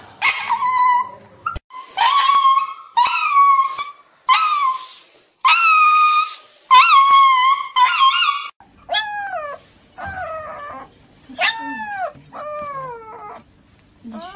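Dogs crying while held for an injection: first a small chihuahua-type dog's loud, high-pitched cries, one after another. About eight and a half seconds in, a husky takes over with shorter howling cries that rise and then fall in pitch.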